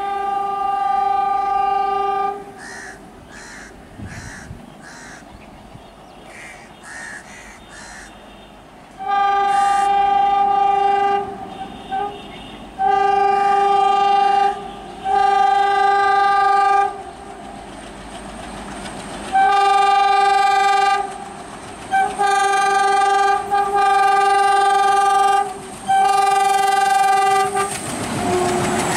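WDM-3A diesel locomotive's air horn sounding repeatedly as the train approaches: one long blast, a pause, then six blasts of one to three seconds each. Near the end the locomotive passes close with a rising rush of engine and wheel noise, and the horn's pitch drops as it goes by.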